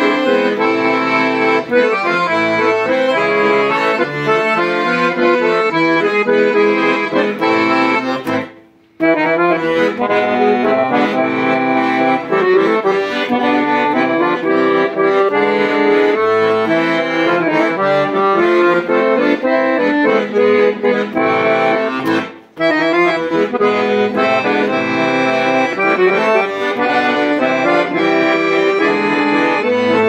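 Piano accordion played with melody on the treble keyboard over bass-button accompaniment, sustained reedy chords and running notes, with two brief pauses, about 9 seconds in and again about 22 seconds in.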